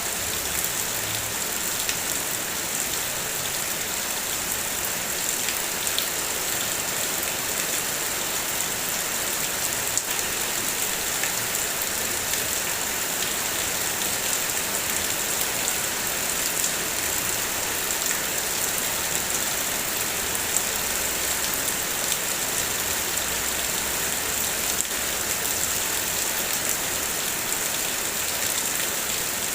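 Steady heavy rain falling, with a dense hiss of drops and scattered single drop ticks.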